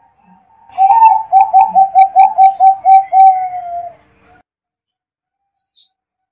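Zebra dove (perkutut) cooing: a run of about ten quick, clipped coos, each dipping slightly in pitch, ending in one longer falling note.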